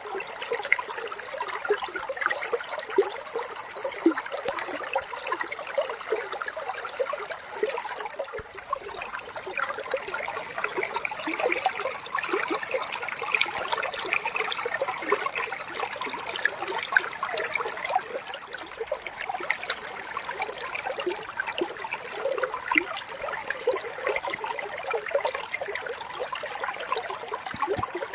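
Flowing water trickling steadily, with a continuous patter of many small splashes.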